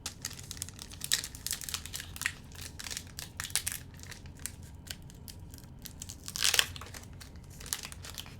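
Foil Pokémon card booster pack crinkling as it is handled and torn open: a run of small crackles, with a louder rustle about six and a half seconds in.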